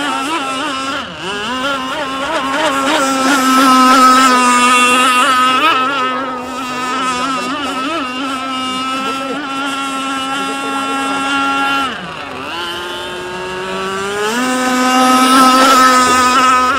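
Radio-controlled racing boat's motor running flat out with a steady high-pitched drone. About twelve seconds in it drops off, then rises in pitch and is back at full speed a couple of seconds later.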